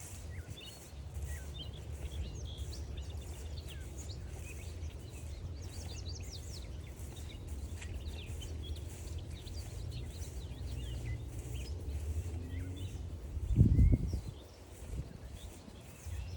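Several wild songbirds chirping and singing at once, short calls overlapping throughout, over a steady low rumble. A loud, low thump comes a little over three-quarters of the way through.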